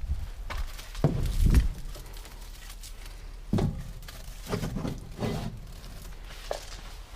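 Footsteps: a handful of dull thuds, irregularly spaced, over a faint steady background.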